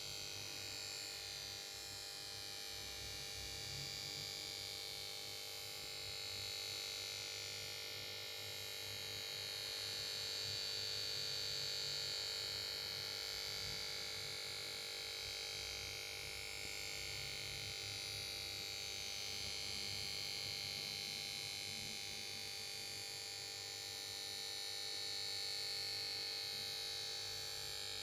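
Steady electrical whine and hum from the power supply board of a Samsung PS42A410C1XBT plasma TV that fails to start. It holds several fixed pitches with a high hiss-like whine on top and does not change. The noise marks a set that goes no further than standby.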